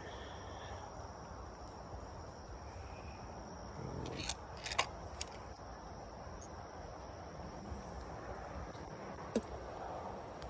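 Insects chirring steadily at one high pitch over a faint outdoor background, with a few sharp clicks about four seconds in and another near the end.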